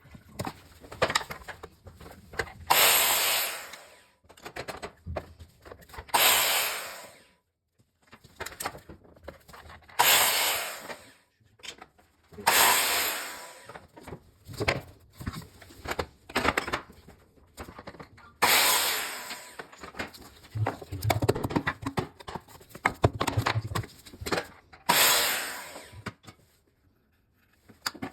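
Hand work on skirting boards: a series of rasping strokes, each about a second long and fading away, every few seconds, with small knocks and clicks between them.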